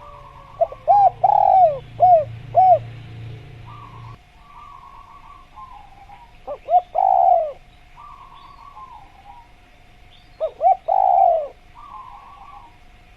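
Spotted dove (tekukur) cooing: three phrases about four seconds apart, each a couple of short coos followed by a longer rolling coo. Softer chirping fills the gaps, over a faint steady tone.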